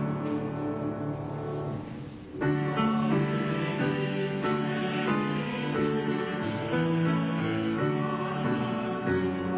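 Hymn played on piano with voices singing along in held notes. It drops away for a moment about two seconds in, between verses, and starts again.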